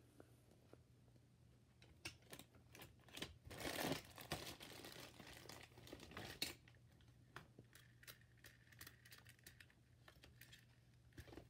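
Near silence with faint rustling and scattered small clicks, the loudest rustle coming about four seconds in.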